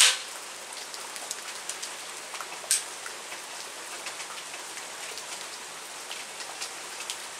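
Steady rain falling, an even hiss with scattered light ticks of drops, and one sharper click nearly three seconds in.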